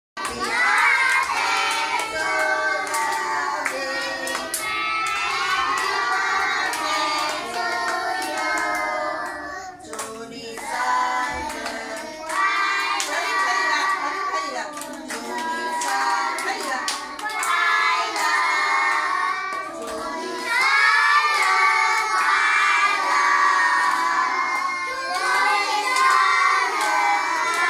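A group of young children singing a birthday song together and clapping along, with short breaks about ten and twenty seconds in as one round ends and the next begins.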